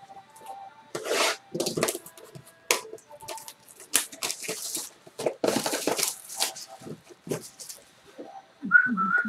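Plastic shrink-wrap crinkling and tearing as it is pulled off a sealed cardboard trading-card box, in a series of short crackly bursts. A brief whistle-like tone sounds near the end.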